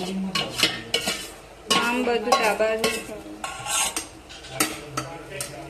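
A spoon stirring and scraping broken wheat as it roasts in a pan, in quick irregular strokes with a light sizzle.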